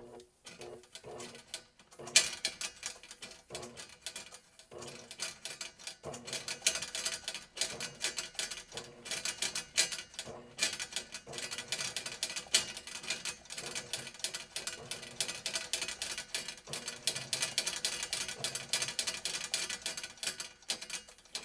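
Electric drum drain auger running, its steel cable clattering in the spinning drum and chuck as it is fed into a clogged drain line. A few light clicks at first, then a fast, dense rattle from about two seconds in.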